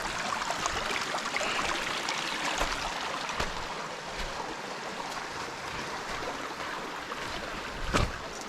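Shallow creek water running over rocks, a steady rushing hiss, with a few short knocks, the loudest near the end.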